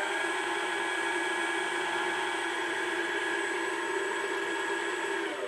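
DIY CNC lathe spindle spinning its three-jaw chuck at speed: a steady motor whine with several overtones, falling in pitch as it winds down near the end.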